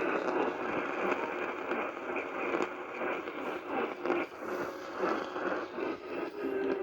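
Radio static: a steady hiss with irregular small crackles, thin and narrow-band like a radio receiver's audio, with no clear voice coming through.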